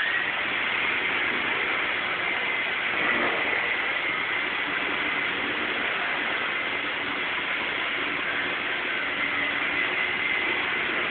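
Small battery-powered toy RC helicopter flying, its electric motors and rotor blades spinning steadily: a steady high whine over a whirring rush of rotor noise.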